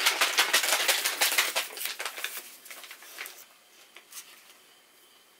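Crinkling and rustling of small Easy-Bake cake mix packets being torn open and handled, dense and steady for about three seconds, then dying down to a few faint rustles.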